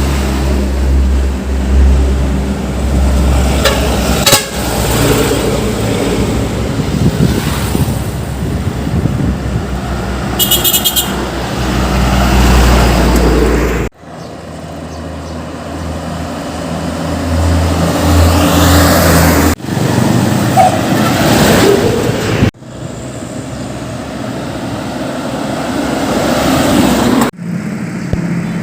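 Heavy diesel trucks running on a road, with a steady low engine sound and traffic noise that cuts abruptly between takes several times. A short high horn toot sounds about ten seconds in.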